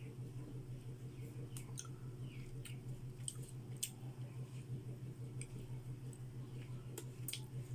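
A person chewing food with mouth noises, scattered wet smacks and clicks, over a steady low hum.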